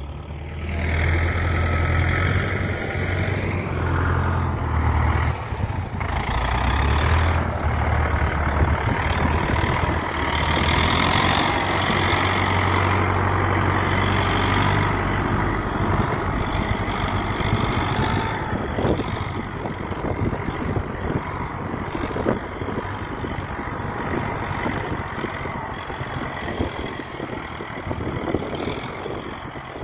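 UTB Universal tractor's diesel engine running steadily, with a deep rumble that eases somewhat after about fifteen seconds.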